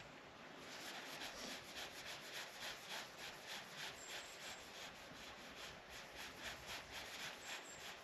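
Fishing reel being cranked steadily to retrieve a crankbait: a soft, even whirring of the reel's gears, pulsing several times a second as the handle turns.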